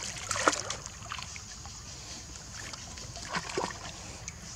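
Water splashing and lapping as young macaques swim through a pool, with a cluster of splashes near the start and another about three and a half seconds in.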